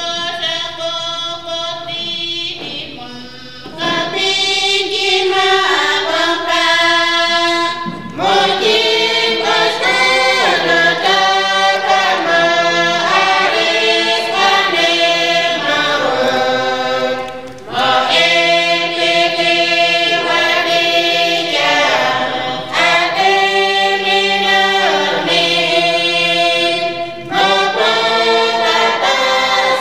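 A small choir singing unaccompanied, holding long notes phrase by phrase with short breaths between phrases.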